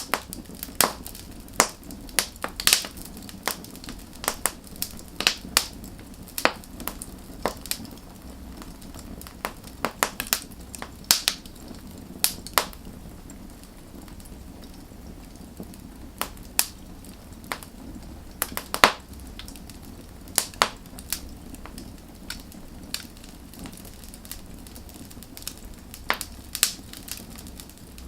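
Wood fire burning, with sharp, irregular crackles and pops over a low steady rumble of the flames; the crackles come thickest in the first half.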